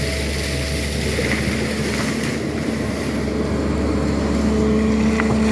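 SANY excavator's diesel engine running steadily, growing a little louder near the end.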